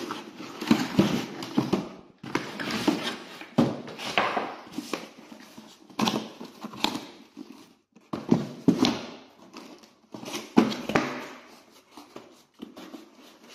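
Hands rummaging through a cardboard box and its plastic-wrapped contents: irregular rustling, crinkling, scraping and light knocks of cardboard and plastic, in spells of a second or two with short pauses between.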